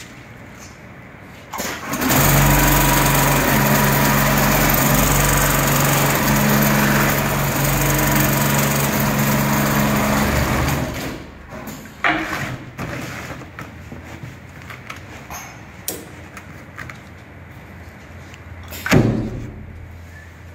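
HighTex FIBC911-400H automatic programmable big-bag sewing machine running a stitch cycle: a loud, steady machine hum starts about two seconds in, runs for about nine seconds, then stops. Afterwards there is quieter handling of the woven bag fabric and webbing, with a sharp knock near the end.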